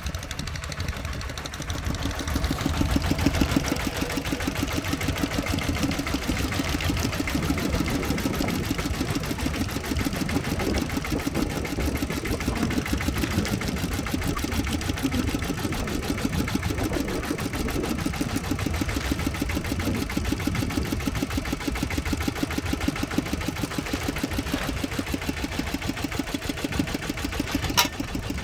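Tractor engine running steadily, a rapid, even clatter of firing strokes.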